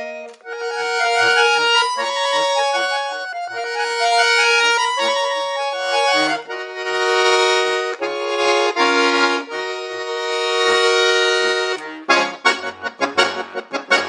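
Solo accordion playing: a sustained, stepping treble melody in held chords over short detached bass notes. About two seconds before the end it breaks into fast repeated staccato chords.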